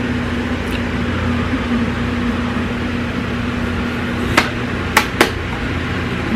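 A few sharp clicks and clacks of makeup palettes being picked up and handled, about four and five seconds in, over a steady low hum.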